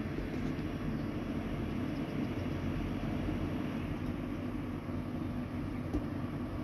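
Steady low outdoor rumble with a faint steady hum, of the kind that distant city traffic makes.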